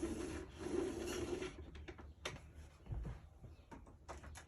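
Handling noise as the Sebo D4 vacuum's power cord is plugged in. A rustle for the first second and a half, then a few scattered light clicks and a dull thump.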